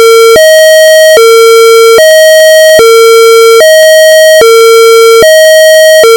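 Electronic two-tone hi-lo alert signal, switching between a low and a higher buzzy tone about every 0.8 seconds, very loud: the attention tone of an emergency alert broadcast.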